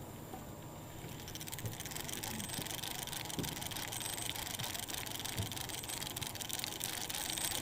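A boat motor running and the boat under way: a steady rushing noise of motor and water that comes in about a second in, with a few soft knocks.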